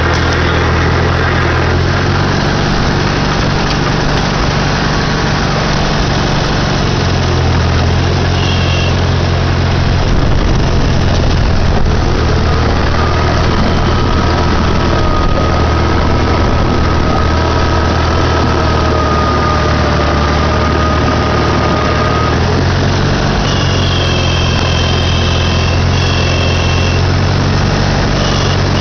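Farmall Super A tractor's four-cylinder engine running steadily, its low note shifting a few times. A thin whine rises above the engine for about ten seconds midway.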